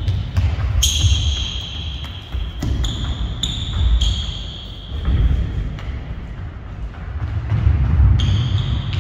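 Athletic shoes squeaking on a sports-hall floor in several held squeals, mixed with the thud of running footfalls and body contact during an agility drill, in an echoing hall.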